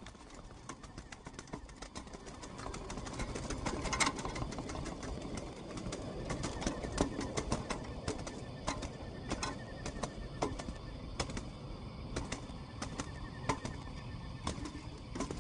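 Zebra doves moving about in a wire cage: irregular sharp clicks and taps of feet and beaks on the wire, with wings flapping near the end.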